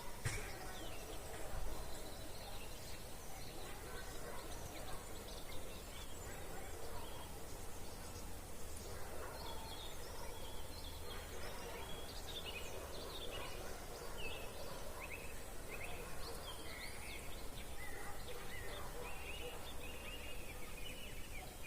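Birds singing in the evening, a busy mix of short chirps and whistles from several birds that grows denser in the second half, over a steady low background rumble.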